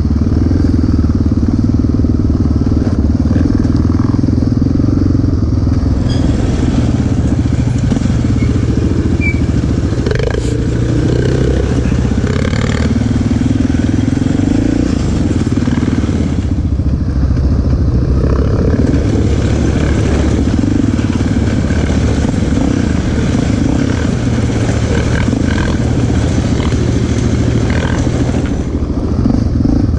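ATV engine running while riding a dirt trail, its pitch rising and falling with the throttle. A rushing noise comes and goes over it.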